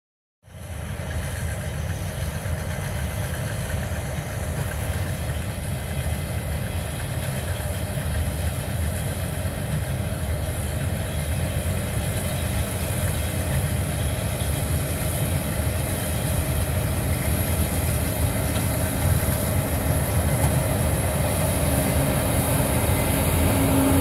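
Case IH 8230 combine harvester running while harvesting barley: a steady low machinery drone with a faint hum, growing gradually louder as the machine comes closer.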